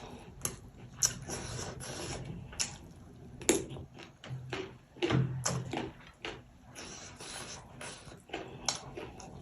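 Close-up eating sounds: wet mouth smacks and chewing clicks, irregular and frequent.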